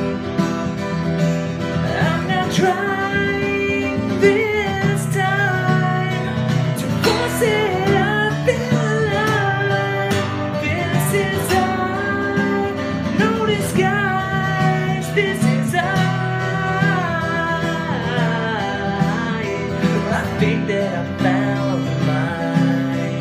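Music: a country-style song with an acoustic guitar backing and a wavering melodic lead line that bends in pitch.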